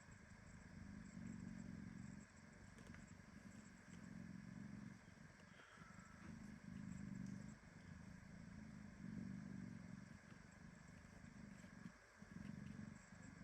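Mother cat purring softly, the low rumble swelling and fading with each breath in and out.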